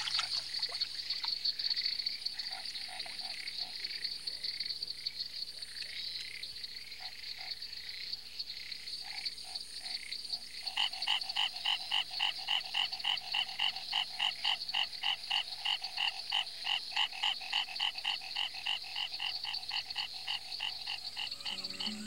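A tree frog calling: scattered faint notes at first, then from about ten seconds in a long, even run of short notes, about three to four a second. Behind it is a steady high trill of insects.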